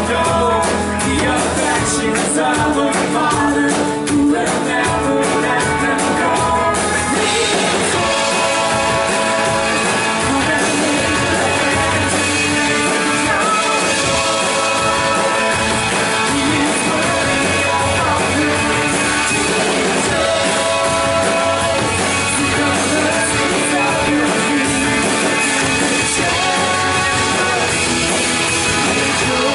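Live church worship band playing rock-style music with guitars and drums, with singing. The sharp rhythmic strokes of the first seven seconds give way to held notes.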